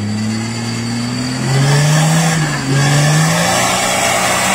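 Off-road 4x4's engine revving hard under load as the vehicle struggles in a muddy rut, its pitch sliding up and down and climbing about a second and a half in, with a loud rushing hiss over it from then on.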